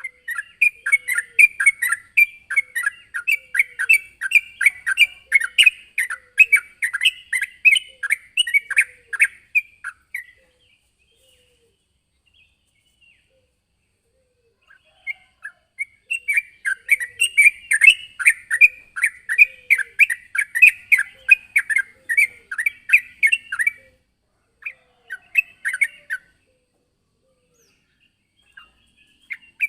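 Yellow-vented bulbul (trucukan) singing in full, lively song: fast runs of bubbly, chattering notes, in two long bouts of several seconds each with pauses between and a few short phrases near the end. It is a rival-calling song of the kind used to lure other bulbuls.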